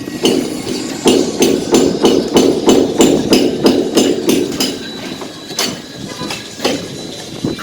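Hammer strikes in a quick, even run of about three blows a second, then a few scattered knocks near the end.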